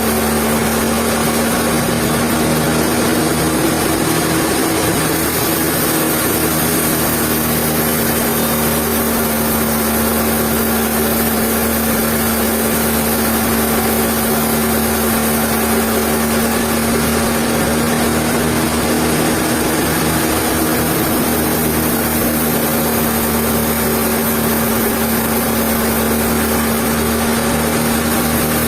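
Sawmill machinery running steadily: a constant mechanical hum with a steady tone over a wide noisy roar, unchanging throughout.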